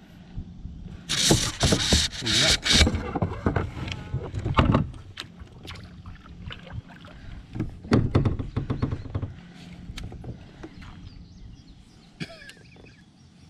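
Water splashing beside a plastic fishing kayak while a hooked fish is fought, loudest in a noisy burst lasting about two seconds near the start. Scattered knocks and clatter of gear on the hull follow, with the landing net being handled.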